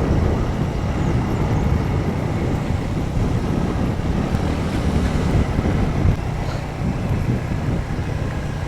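Royal Enfield Bullet single-cylinder motorcycle running on the move: a steady low rumble of engine and road with no letup.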